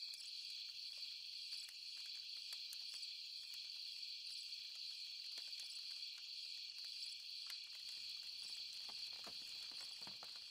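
A steady, high-pitched chorus of night insects trilling without a break. Faint scattered crackles from a wood campfire sit beneath it.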